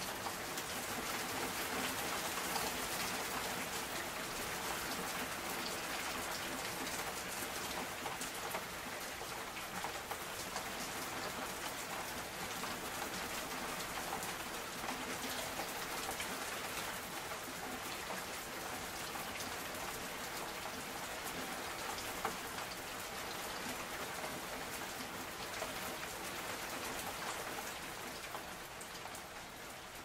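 Steady rain falling, with a constant hiss and many separate drops ticking, in a binaural recording. It eases off slightly near the end.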